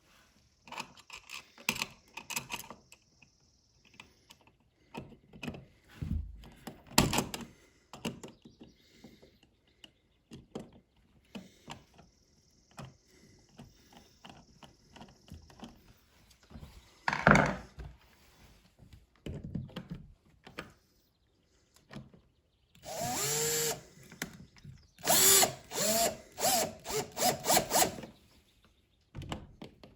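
Scattered clicks and knocks of the switch being handled and pushed into the wall box. About three-quarters of the way in, a power drill/driver runs in several short bursts, its speed rising and falling as it drives in screws.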